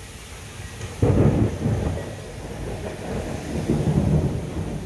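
A close clap of thunder breaks about a second in and rolls on as a deep rumble, swelling again near the end, over steady rain.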